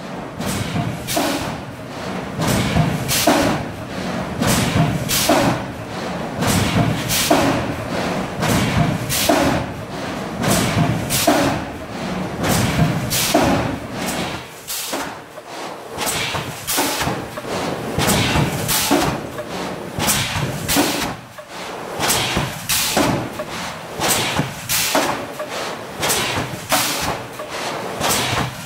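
GN800 thermoforming machine cycling, its press stations giving a steady, rapid rhythm of sharp mechanical thumps, about two a second, over a low rumble.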